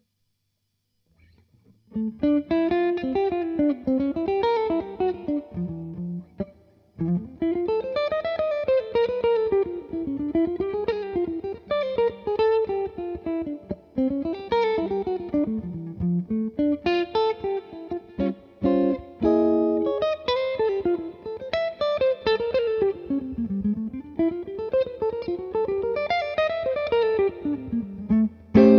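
Semi-hollow ES-335-style electric guitar played through an amp: single-note lead phrases that wind up and down, with a few short chords in the middle. The playing starts about two seconds in and ends on a loud chord.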